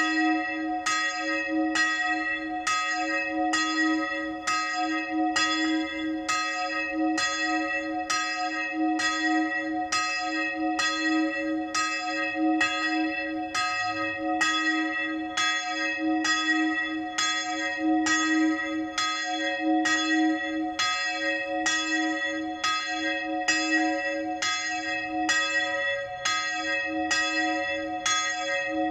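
Church bell in a small lantern belfry ringing the midday bell, swinging in even, regular strokes a little more than once a second, each stroke ringing on into the next.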